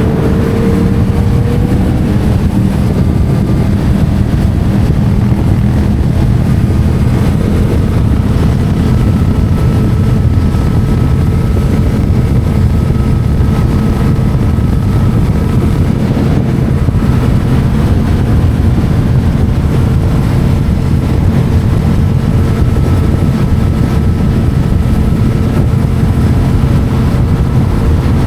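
Yamaha MT-07's parallel-twin engine, breathing through an Akrapovic titanium exhaust, running under way at a nearly steady engine speed, its pitch rising slightly in the first couple of seconds and then holding.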